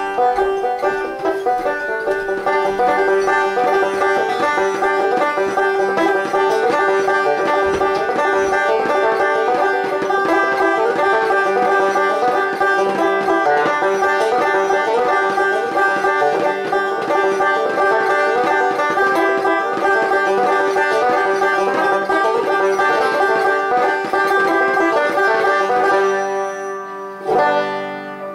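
Banjo being picked in a fast, continuous stream of plucked notes over a steady repeated high note, with a brief lull and a few strums near the end before the picking resumes.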